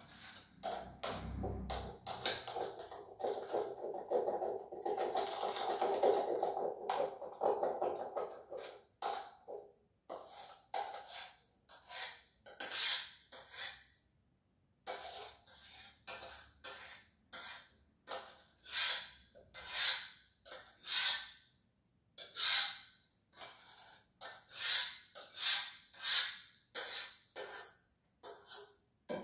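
A utensil scraping the inside of a steel pot in repeated short strokes, about one a second, as food is scraped out onto a plate. A steady hum sits under the first eight seconds or so.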